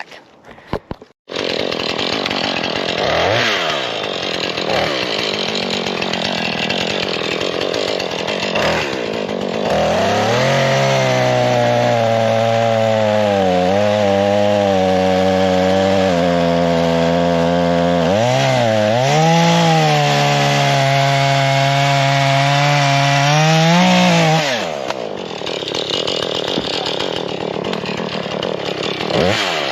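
Husqvarna 440 two-stroke chainsaw running and cutting wood. Its engine pitch sags and recovers several times as the chain bites and frees.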